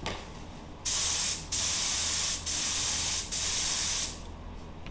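Air spray gun spraying rubber-based contact adhesive: four loud hissing bursts in quick succession, starting about a second in, each under a second long.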